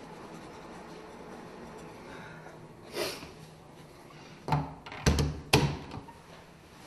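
A door being shut in a small room: several knocks and thuds with latch clicks, about four and a half to five and a half seconds in, after a brief swish a little earlier.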